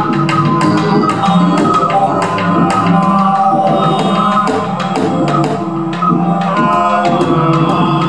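Live improvised music from a laptop-based electronic setup: layered, sustained pitched tones with a steady scatter of sharp percussive clicks over them.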